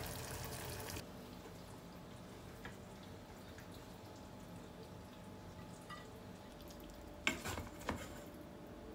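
Fried fish and soy-ginger sauce sizzling in a pan as a wooden spatula stirs it, cutting off suddenly about a second in. Then a faint steady hum of a quiet kitchen, with two or three sharp clacks near the end as the fish is served from the pan onto a plate.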